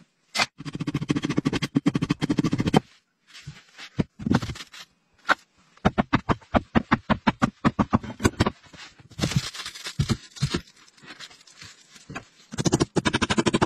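Hand tools working wood: several bursts of quick rasping and knocking strokes, a number of them each second, broken by short pauses.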